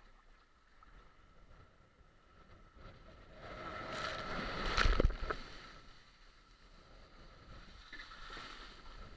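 Rider sliding down a waterslide: water and air rush over the action camera, building to a loud peak with a thump about five seconds in, then settling to a quieter rush.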